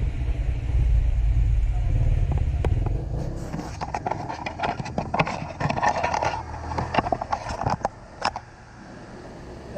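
A low rumble for the first few seconds. Then a run of clicks, knocks and scraping as the recording phone is handled and repositioned over the workbench, ending about a second before the end.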